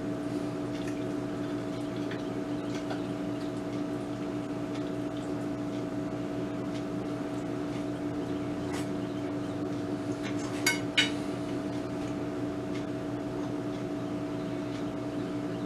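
A steady low hum with scattered faint clicks, and two quick clinks of a fork on a plate about eleven seconds in.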